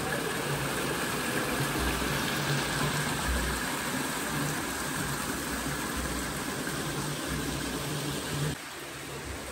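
Warm sulphur spring water splashing down into the cave pool, a steady rushing hiss that echoes in the enclosed cave. It drops in level suddenly about a second before the end.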